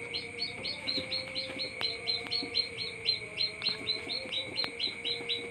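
Chick peeping in quick, even succession, about four or five high peeps a second, over a faint steady tone.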